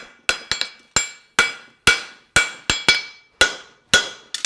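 Farrier's hammer striking hot steel bar stock on a steel anvil, about two blows a second with a few quick double strikes, each followed by a short metallic ring from the anvil, as material is localized for a horseshoe.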